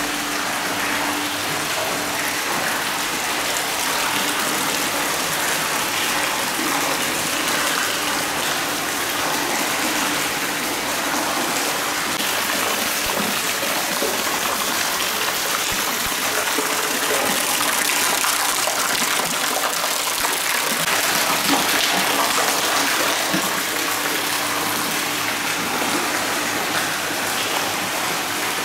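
Hot spring water pouring steadily from bamboo spouts and splashing into a stone bath, a little louder about two-thirds of the way through.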